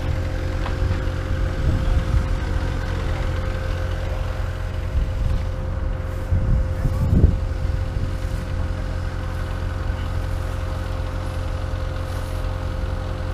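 Diesel engine of heavy earth-moving equipment running with a steady low rumble and a constant whine, swelling a couple of times and loudest about seven seconds in.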